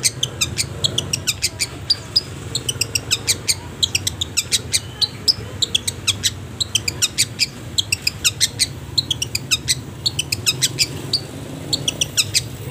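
Long-tailed shrike (cendet) singing: runs of quick, sharp, high chirps, several a second, broken by short pauses, over a faint low hum.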